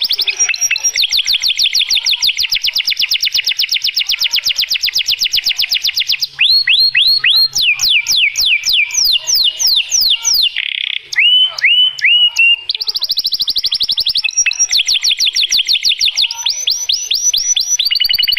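Domestic canary singing a long, loud song: fast rolling trills, then a run of sweeping down-slurred notes in the middle, then rapid trills again.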